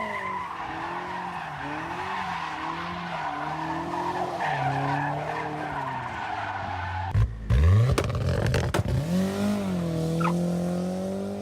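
Turbocharged Toyota MR2 engine held at high revs, its pitch wavering up and down, with a high rushing noise over it. About seven seconds in the sound breaks off briefly, the engine note sweeps sharply up, then it pulls steadily with its pitch slowly rising, as under hard acceleration.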